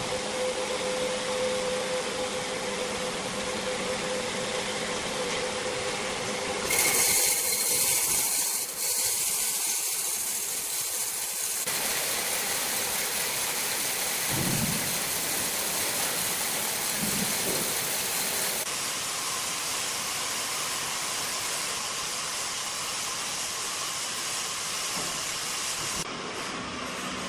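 Sawmill machinery running with a steady, hissing noise that shifts abruptly several times, growing brighter and higher for a few seconds about a quarter of the way in.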